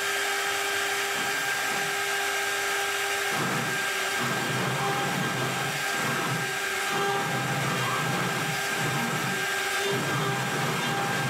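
CNC router spindle running with a steady high whine. From about three seconds in the whine wavers and a lower rumble comes and goes as the bit cuts into wood.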